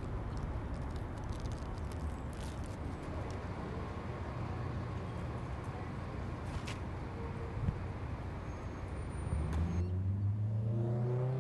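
Steady rumble of city street traffic, with a few faint clicks. Near the end it changes to a louder low hum that rises slightly in pitch.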